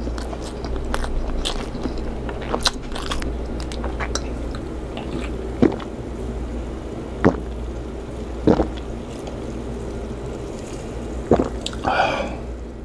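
A person chewing and eating Filipino chicken curry, with a few sharp mouth clicks in the second half and a short voiced sound near the end.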